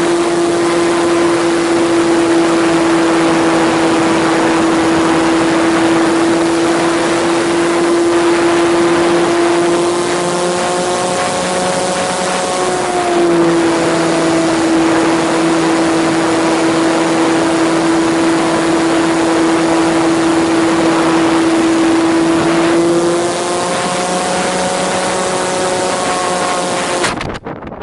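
Model airplane's electric motor and propeller running at a steady pitch, heard from the onboard camera with wind rushing past. The pitch shifts with throttle changes about halfway through and again later, then the sound cuts off abruptly with a knock near the end as the plane hits a tree.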